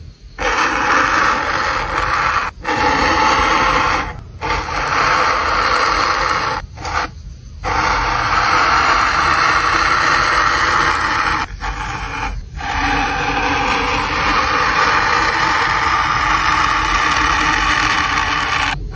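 A metal-tipped pen tool scraping as it is pressed and dragged through white foam, carving grooves along a drawn outline. It is a continuous gritty scraping in long strokes, broken by a few short pauses where the tip lifts off.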